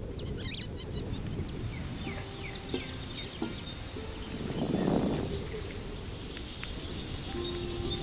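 Dry-scrub ambience: insects shrill steadily at high pitch while small birds chirp in short calls. Faint low sustained notes lie underneath, with a soft swell about halfway through.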